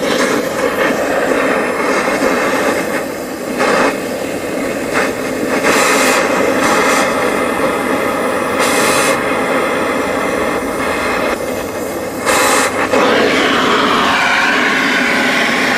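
Oxy-fuel cutting torch running with a steady roaring hiss as it is played on stainless steel compressor mounting bolts, which it cannot cut. Several brief, louder and higher hissing surges come through it.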